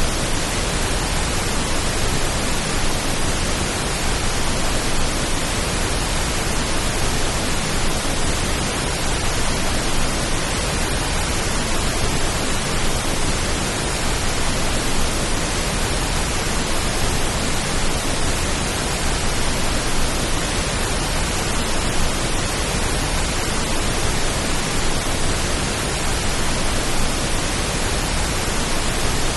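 Steady pink noise: an even, unchanging hiss spread across all pitches, made as a rain-like calming sound.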